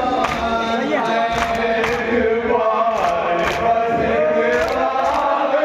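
A group of men chanting a marsiya together in unison through a microphone, a mourning lament, with sharp, rhythmic matam strikes, hands beating on chests, about twice a second under the voices.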